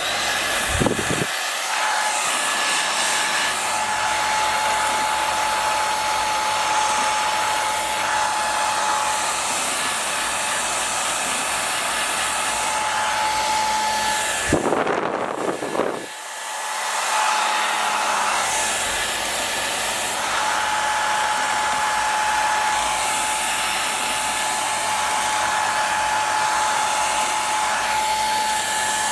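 Electric hair dryer running with a steady rush of air and a thin motor whine. About halfway through it clicks and briefly drops away, then comes back up and runs on steadily.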